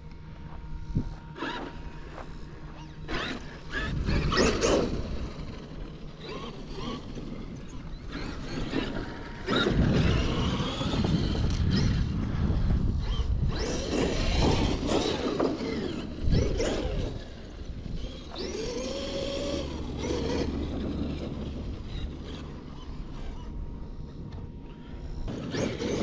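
Traxxas X-Maxx electric RC monster truck driving on grass: its motor and drivetrain whine rises and falls in pitch as it speeds up, slows and turns, with mechanical rattle from the running gear.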